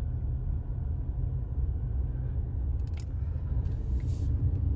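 Car driving along a road, heard from inside the cabin as a steady low rumble of road and engine noise, with a few faint clicks about three seconds in.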